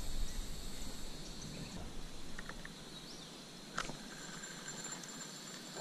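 Steady high-pitched insect chorus over a faint outdoor hiss, its pitch shifting partway through, with a few faint chirps and a single sharp click a little before the end.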